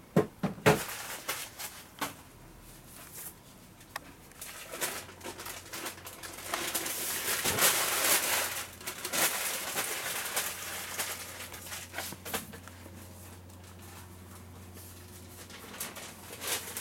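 Plastic packaging film rustling and crinkling as a Bosch BT 350 telescopic pole is unwrapped and handled, with a few sharp knocks in the first second. The rustling is loudest in the middle stretch.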